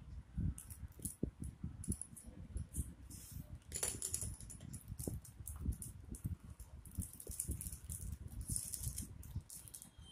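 Hands rummaging through a cardboard box of stationery: pens, pencils and plastic items clicking and clattering against each other and the box, with bursts of packaging and cardboard rustling.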